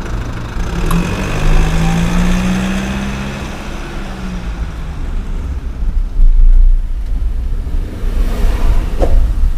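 Road traffic: a motor vehicle's engine running as it passes, over a steady low rumble of road and wind noise.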